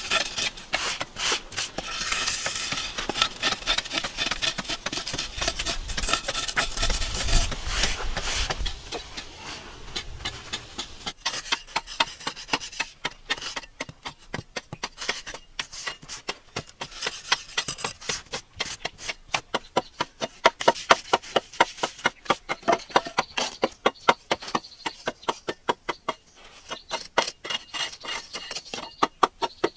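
A metal blade scraping and cutting into hard-packed clay. It starts as a steady rasping scrape, then from about a third of the way in it becomes quick, regular scoring strokes, two or three a second.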